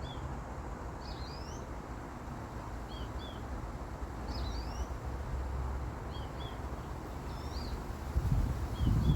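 Small bird chirping, short high chirps in little groups every second or two, over a steady outdoor background hiss. A low rumble of wind on the microphone comes in near the end.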